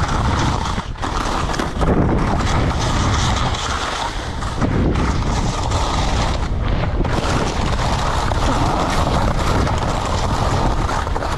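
Wind buffeting the microphone of an action camera on a skier going downhill, mixed with the skis sliding and scraping over the snow: a steady, loud rushing.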